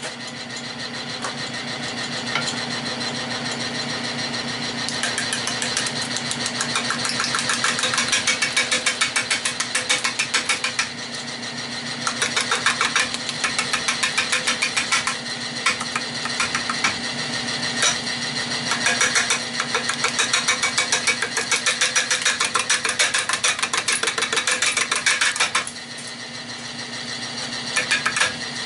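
Nova 16/24 wood lathe motor running with a steady hum, coming up in level over the first couple of seconds. A turning gouge then cuts an out-of-round redbud blank, giving a fast, even chattering rhythm as the tool meets the high spots of each revolution, broken by a few short pauses.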